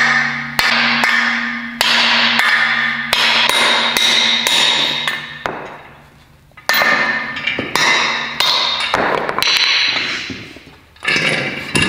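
Hammer blows on a seized CV axle to drive it out of the wheel hub, about nine strikes roughly a second apart, each ringing and dying away.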